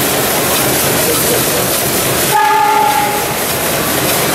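A short whistle blast of about half a second, one held high tone with fainter tones above it, about two and a half seconds in. Under it runs a steady hiss from running model steam engines.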